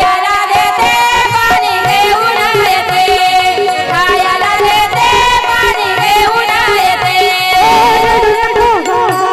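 A woman singing a Marathi devotional gavlan with a wavering, ornamented melody, over a steadily held instrument tone and hand-drum accompaniment.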